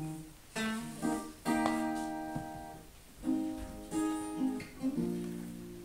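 Acoustic guitar played solo: a short instrumental passage of chords struck one after another and left to ring.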